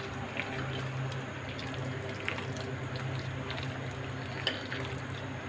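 Hand squishing and kneading a thick, wet pakora batter of ground chana dal and goat brain in a glass bowl: a continuous soft squelching with a few faint ticks.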